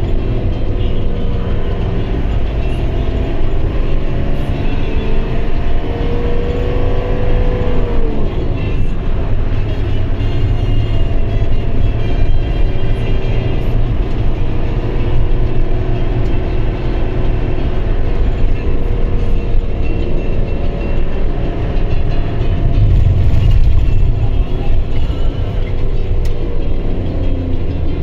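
Motor vehicle driving, heard from inside the cabin: a steady, loud engine and road rumble, with the engine note holding and then dropping as the vehicle slows.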